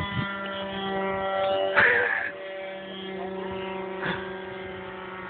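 Radio-controlled pylon racer plane in flight, its motor giving a steady, buzzy droning tone with slight shifts in pitch. A brief loud rush of noise cuts in about two seconds in.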